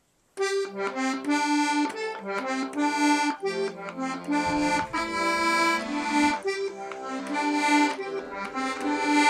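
Background music: a quick melody of short notes over low sustained bass notes, starting about half a second in.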